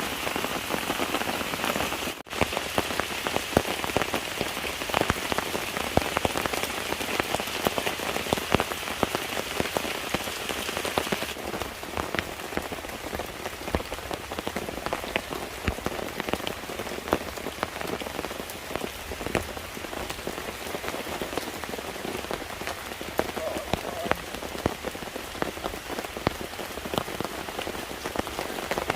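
Steady rain falling, with many separate drops tapping sharply through an even hiss. A higher part of the hiss stops about a third of the way in.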